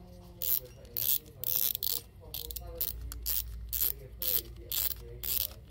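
Shimano Ultegra C3000XG spinning reel's front drag clicking in about a dozen short ratcheting bursts as the drag knob is twisted by hand to free the spool.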